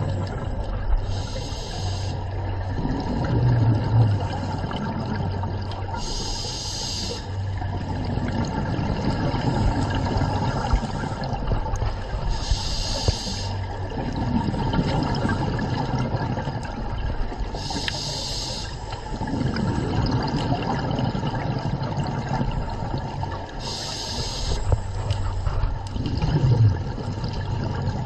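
A scuba diver's regulator breathing underwater, heard through the camera housing. Each breath drawn through the demand valve is a short hiss, about every five to six seconds, and between them runs the longer low gurgle of exhaled bubbles.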